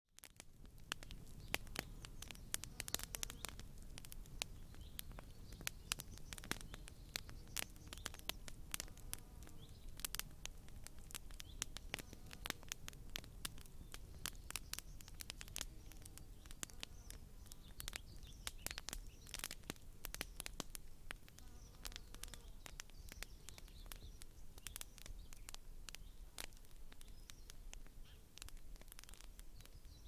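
Bonfire of dry brushwood and leaves crackling: irregular sharp pops and snaps, several a second, over a low steady rumble.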